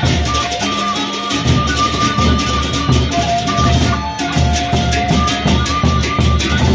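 Lombok gendang beleq ensemble playing: large double-headed barrel drums beat a driving rhythm under a fast, dense clatter of high strokes, typical of the ensemble's ceng-ceng cymbals. Held melodic notes sound above the drums.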